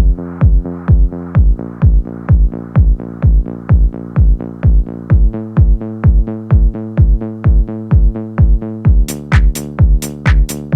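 Electronic dance music: a steady kick drum about twice a second under sustained synth chords that change twice. Sharp hi-hats come in about nine seconds in.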